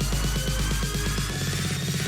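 Electronic background music: a fast repeating bass pattern under a thin synth tone that slowly rises in pitch.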